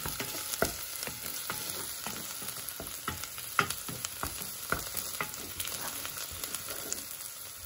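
Diced onion and bell pepper sizzling in oil in a non-stick pot as they sauté, stirred with a wooden spoon that scrapes and taps against the pot now and then.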